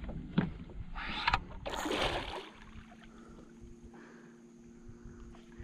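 A hooked barramundi thrashing and splashing at the water's surface beside the boat, with a few sharp splashes in the first two seconds. After that it goes quieter, leaving a faint steady hum.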